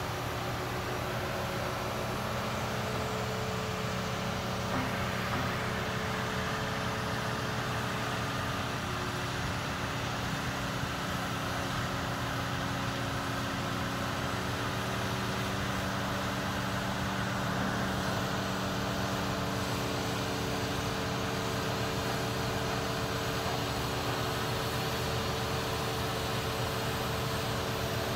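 Mobile crane's diesel engine running steadily under load while holding a suspended steam locomotive, its pitch stepping up about halfway through.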